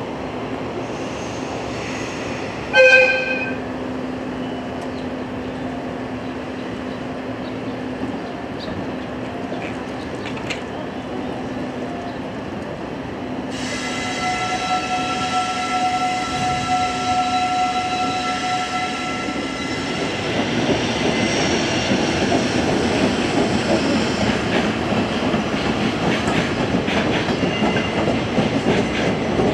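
A train approaching and passing. A short horn blast sounds about three seconds in. A long steady high tone runs for about six seconds from the middle, then the rumble and clatter of the wheels grows louder toward the end.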